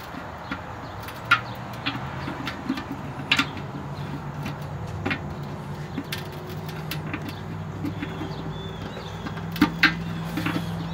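Light metal clicks and clinks, scattered and irregular, as the small wrench supplied with a Weber kettle grill tightens the flat nuts on the lid handle bolts. A vehicle engine hums steadily in the background and gets louder near the end.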